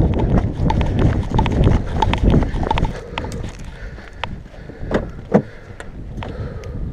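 Running footsteps on a paved path with the body camera jostling, giving way to quieter steps about three seconds in; a sharp clunk of a car door opening a little after five seconds.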